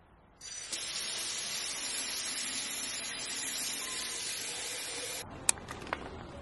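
Kitchen faucet running into a watering can, a steady gush of water filling it that cuts off suddenly about five seconds in, followed by two sharp clicks.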